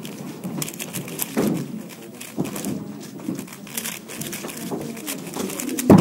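Fast clatter of a plastic YJ MGC 4x4 speed cube being turned, with rapid clicks of its layers. Near the end, a sharp slap as both hands hit the pads of a Speed Stacks timer to stop it.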